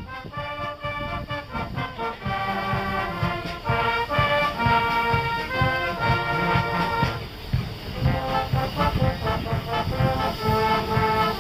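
Brass band playing a tune, several brass parts over a steady low beat, with a brief lull about seven seconds in.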